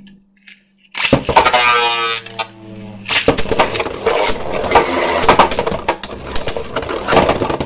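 A Beyblade launcher ripped, its whir rising in pitch for about a second and a half. Then the tops, a 3D-printed Hero Samuraizor and a Super Hyperion, spin and clash in the stadium with a dense, loud rattle of clicks and knocks.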